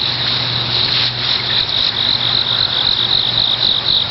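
Crickets chirping in a steady high-pitched chorus. From about halfway through it takes on a regular pulse of about four chirps a second.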